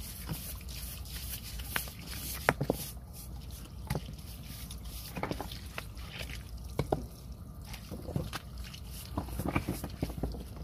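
Hands working wet rocks loose from mud: scattered knocks and scrapes of stone on stone, with dripping and squishing of wet mud.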